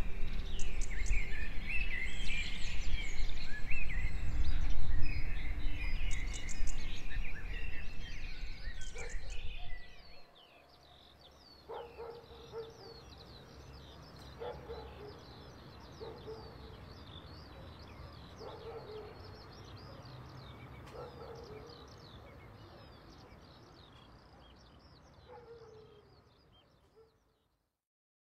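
Outdoor nature ambience: birds chirping and singing over a loud low rumble. About ten seconds in it drops to a quieter scene of many small high chirps with faint low calls every second or two, fading out near the end.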